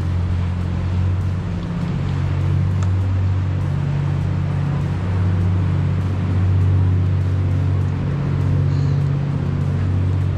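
Steady, loud low rumble with a fainter hiss above it, unbroken throughout.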